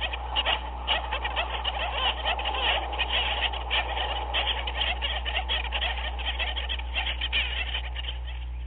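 A dense chorus of many rapid, overlapping animal calls with no pauses, over a steady low hum.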